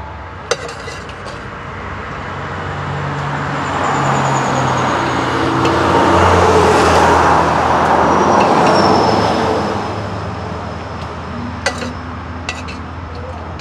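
A road vehicle driving past: its engine and tyre noise swell to a peak midway and fade away again. A few light clicks come near the start and near the end.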